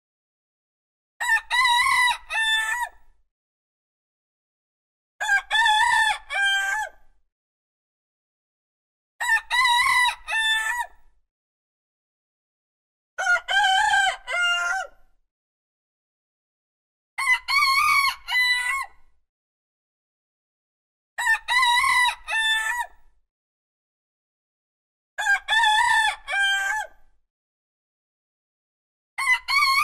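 A rooster crowing a full cock-a-doodle-doo, each crow about two seconds long, repeated every four seconds with silence between. The last crow begins right at the end.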